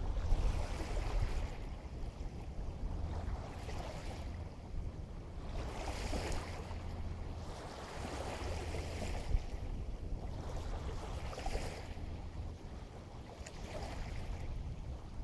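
Small waves washing in and drawing back every few seconds over a steady low rumble of wind on the microphone.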